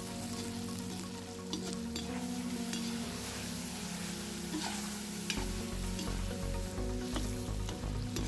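Pieces of meat and onion sizzling in hot oil in a cast-iron kazan, stirred with a slotted spatula that scrapes and clicks against the pot now and then. Background music plays underneath and picks up a beat about five seconds in.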